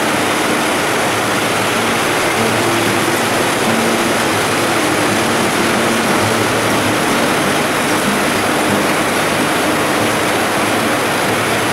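Many power looms running at once on a weaving-mill floor: a loud, steady mechanical din.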